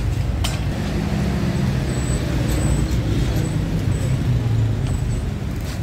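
Street traffic with a vehicle engine running close by: a steady low rumble.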